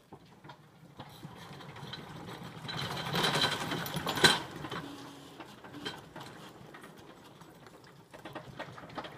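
Hewitt aluminium boat lift rolling on its wheels down wooden planks into the lake: a rattling clatter of the frame that builds to a loud peak with one sharp clank about four seconds in, then eases off as it rolls on into the water.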